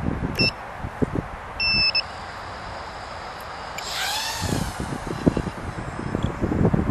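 The piezo buzzer on a Tinyhawk 2 micro FPV drone gives a short beep, then a longer one. About four seconds in, the drone's tiny motors rev up and back down in a rising-then-falling whine, followed by repeated low thumps of wind buffeting the microphone.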